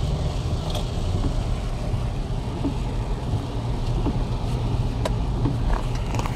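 Steady low rumble of engine and road noise heard from inside a moving car, with a couple of faint clicks.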